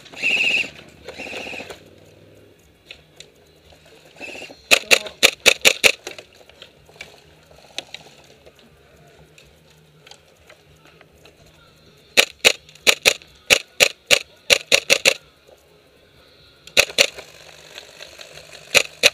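Airsoft guns firing in volleys of sharp, snapping shots. A quick string of about eight shots comes about five seconds in, a longer run of shots a few seconds later, and a few more shots near the end.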